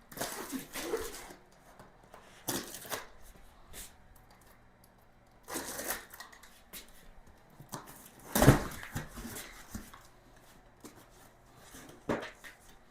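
Scattered rustling and handling noises in bursts, with a heavier thump about eight and a half seconds in.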